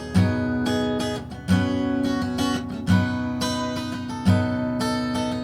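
Music: acoustic guitar strumming over a steady low kick-drum beat, about one beat every second and a half, the instrumental opening of a song before the singing begins.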